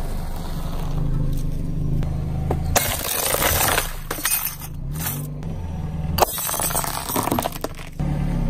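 A car engine running low under a tyre rolling over a wall clock: the clock's glass face and plastic case crack and crunch in several crackling stretches, beginning about three seconds in.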